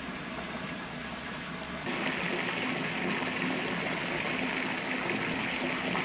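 Tap water pouring from a floor-standing bath filler into a freestanding bathtub full of bubble-bath foam, a steady running splash that gets louder about two seconds in.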